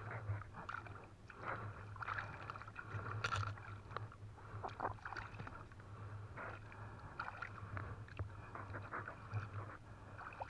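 River water splashing and sloshing in short, irregular bursts as a trammel fishing net is pulled through and turned over by hand at the surface, with a steady low hum underneath.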